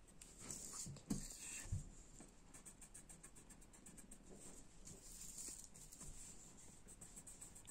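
Faint scratching of a coloured pencil scribbling back and forth on paper, with two soft knocks about a second and a second and a half in.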